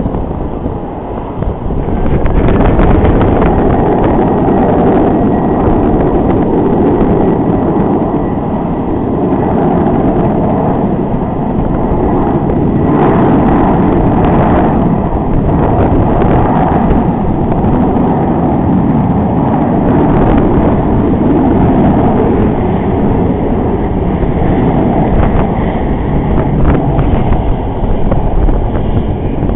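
Loud, steady rumble of jet airliner engines at the airport, mixed with wind buffeting the microphone.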